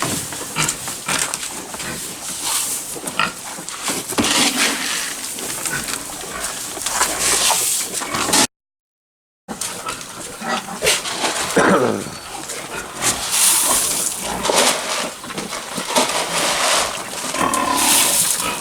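Hungry pigs squealing and grunting at feeding time, with scattered knocks. The sound cuts out completely for about a second midway.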